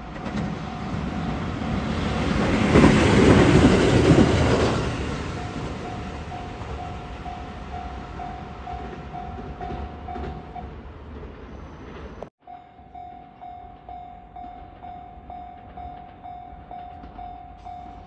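Japanese level-crossing warning bell ringing at about two strokes a second while a train passes close by with rumbling, clattering wheels, loudest about three to four seconds in. After a sudden break about twelve seconds in, a crossing bell rings on at the same pace.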